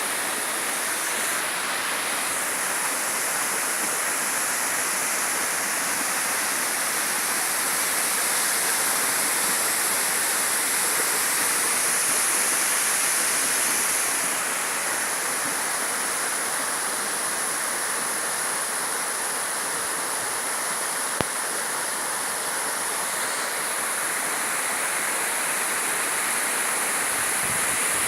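Running water rushing steadily, with one brief click about 21 seconds in.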